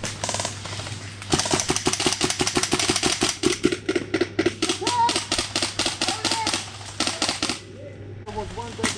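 Airsoft gas pistol fired rapidly in semi-auto, a string of sharp cracks at about six shots a second for some six seconds, with a couple more shots near the end.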